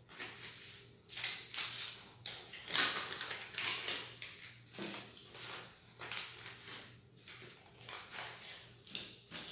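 Paper banknotes rustling in the hands as they are sorted and counted, in irregular bursts about once or twice a second.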